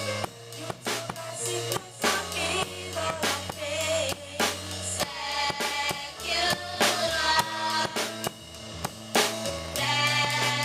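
Live gospel music: voices singing over a drum kit keeping a steady beat and a moving bass line.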